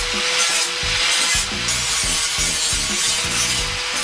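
Handheld angle grinder fitted with a polishing disc, running at steady speed with its motor whine held, and a rasping hiss that comes and goes as the disc is worked along the rough cut edges of thin sheet steel to smooth them.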